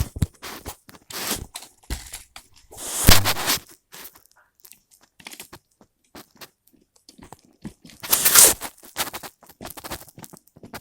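Hard plastic Lego Technic parts being handled: irregular clicks and scrapes, with two louder crunching rattles, one about three seconds in and one at about eight seconds.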